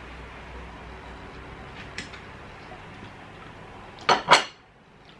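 Tableware clinking at a dinner table: a faint clink about two seconds in, then two sharp knocks in quick succession a little after four seconds, over a low room hum.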